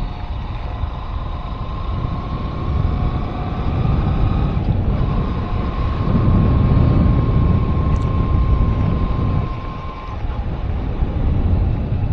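Road vehicle running at a steady cruise, with heavy wind rumble on the microphone and a faint steady whine from the drivetrain.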